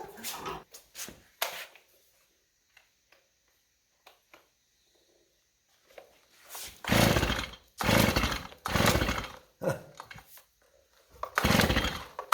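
Stihl MS290 chainsaw being pull-started: several hard yanks on the recoil starter in quick succession, each a short rasp of the cord and the engine turning over. It never fires or catches, because the saw won't start.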